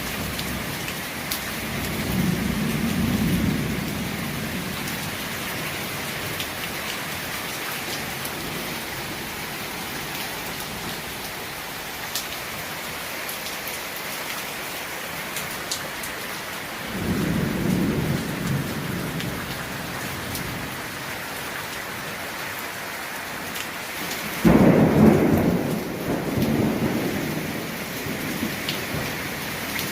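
Steady heavy rain with thunder rumbling three times. The last clap, near the end, starts suddenly and is the loudest.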